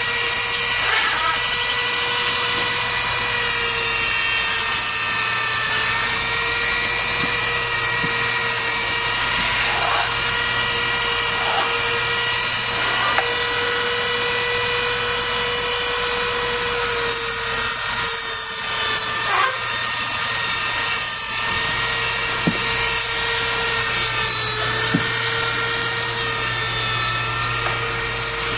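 Small rotary nail grinder running with a steady whine whose pitch dips slightly now and then as it grinds down a macaw's nails.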